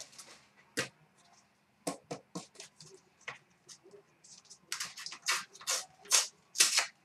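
Trading-card pack wrapper crinkling and tearing as it is opened by hand, along with cards being handled. Scattered short crackles, coming thicker in the last two seconds.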